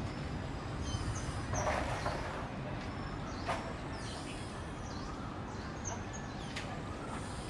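Steady low background rumble with a few short high chirps, a brief rustle about two seconds in and a sharp click about a second and a half later.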